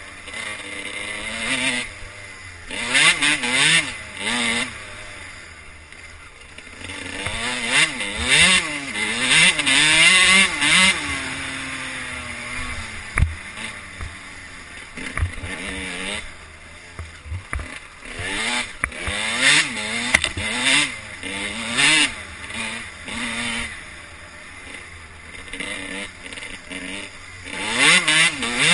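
Motocross dirt bike engine revving up and down again and again as the rider opens and shuts the throttle, heard from the rider's own camera. Several loud stretches of rushing noise come when it is pulled hardest.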